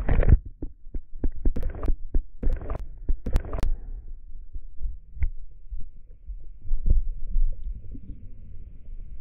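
Muffled underwater sound from a submerged action camera: low thumps and rumble as water is stirred by hands and legs moving beside it. There are many sharp clicks and knocks in the first four seconds, then a steadier low rumble.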